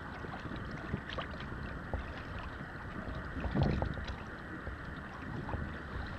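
Water lapping and splashing against a sailing kayak's hull as it moves through light chop, with wind on the microphone. A louder slap or thump comes a little past halfway.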